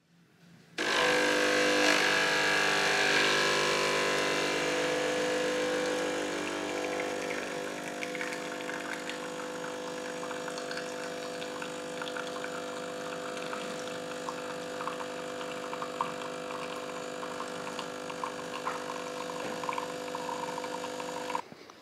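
Pump espresso machine buzzing steadily as it pulls a shot into a cup, louder for the first few seconds, with faint crackling spurts as the coffee runs; it cuts off suddenly near the end.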